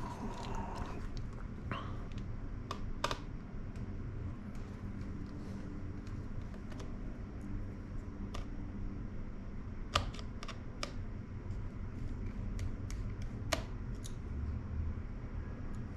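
Sparse, irregular light clicks and taps, as from small parts and tools being handled during a laptop repair, over a low steady hum.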